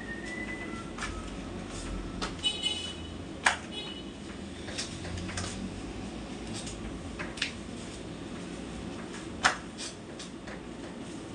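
Scattered sharp clicks and knocks of things being handled during housework, with a brief ringing clink about two and a half seconds in and the two loudest knocks about three and a half and nine and a half seconds in, over a steady low hum.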